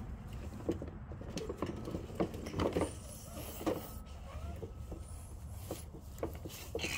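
Hollow plastic knocks, clicks and scrapes as the bed of a plastic toy dump truck is handled and tipped up, over a steady low rumble.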